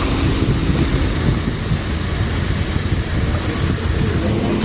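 Steady low rumble of wind buffeting the microphone, mixed with the noise of a motor vehicle running nearby.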